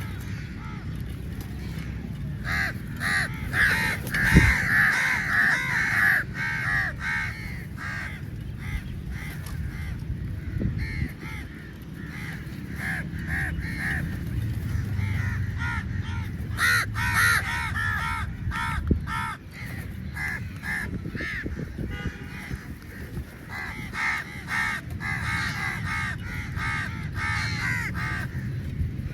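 A flock of crows cawing, many harsh calls overlapping, in busy bursts with quieter spells between. A single low knock comes about four seconds in.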